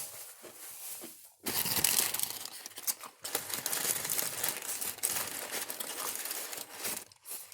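Paper sandwich wrapper crinkling and rustling as it is folded up around food, quieter at first and then loud and continuous from about a second and a half in.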